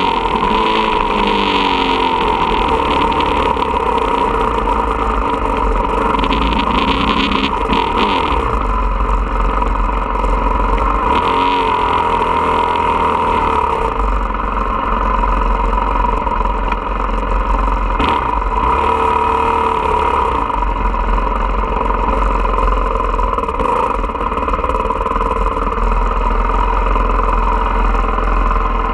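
Motocross dirt bike engine heard close up: revving up and down with the throttle for the first eight seconds or so, then running more steadily at low speed, with another brief rise and fall around twenty seconds in.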